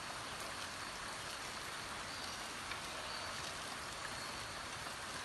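Water from a small homemade PVC-pipe water fountain trickling and splashing steadily.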